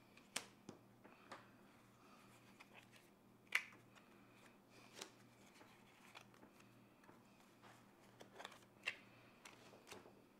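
Playing cards dealt one at a time from a hand-held deck onto a wooden tabletop: sparse sharp card snaps and taps, about eight in all, the loudest about three and a half seconds in, over quiet room tone.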